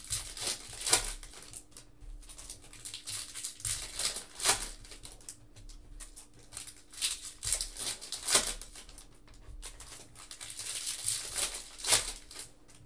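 Trading-card pack wrappers crinkling and being torn open, with cards handled and stacked in between. The rustling is irregular, with a few sharper snaps along the way.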